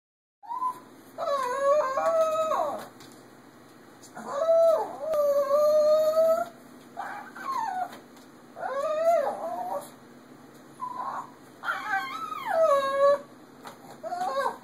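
Shih Tzu whining and howling from inside a soft-sided crate: a series of drawn-out, wavering whine-howls, some rising and falling in pitch, with short pauses between them. It is a dog asking to be let out of the crate.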